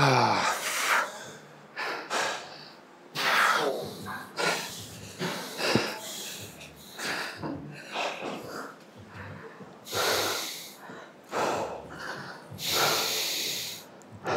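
A man breathing hard after an exhausting set of leg exercises: quick, heavy breaths in and out one after another, with a longer hissing exhale near the end.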